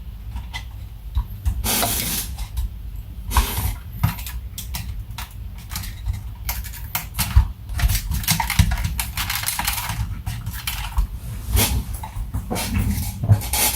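Handling noises from the instrument cluster's plastic parts being worked by hand: irregular clicks, taps and rustling, with a low rumble underneath.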